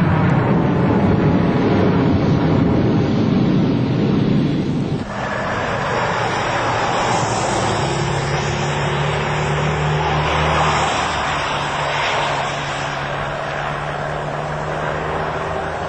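Jet airliner taking off, its engines a loud rush with a sweeping pitch. About five seconds in this cuts sharply to buses driving by, their engines a steady low hum.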